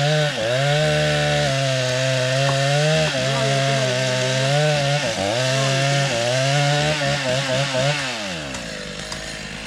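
Chainsaw running at high speed while cutting timber, its pitch dipping briefly several times as the cut loads it, then winding down about eight seconds in.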